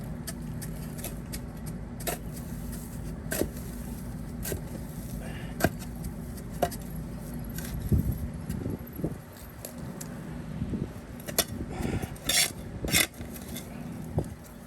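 Metal shovel digging in soil around a buried pipe, with sharp clinks and scrapes every second or so. A steady low engine hum runs underneath and fades about halfway through.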